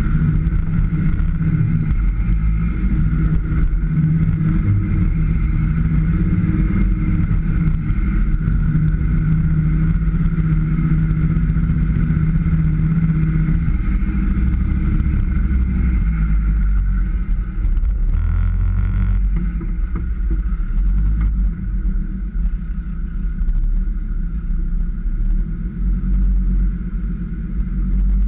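Land Rover Defender engine running under load while driving off-road, with a steady whine above the engine note. The engine note holds steady for the first half, then changes and eases off somewhat.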